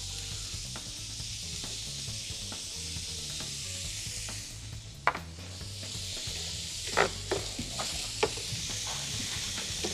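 Chopped onions and garlic frying in oil in a stainless steel frying pan, a steady sizzle. A spoon stirs them, knocking against the pan once about five seconds in and several times a couple of seconds later.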